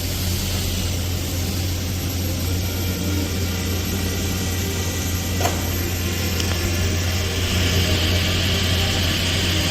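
TIG welding a stainless steel pipe root pass: a steady arc hiss over a constant low electrical hum, the hiss growing a little stronger near the end.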